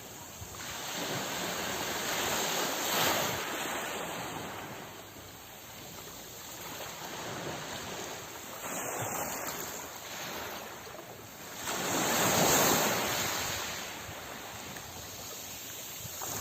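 Sea waves breaking and washing ashore, the surf swelling and ebbing in slow surges, loudest about three seconds in and again about twelve seconds in.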